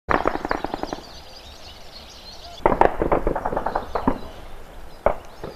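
Bursts of automatic gunfire: a rapid burst of about ten shots in the first second, a second burst of about ten shots a little under three seconds in, then a few single shots near the end.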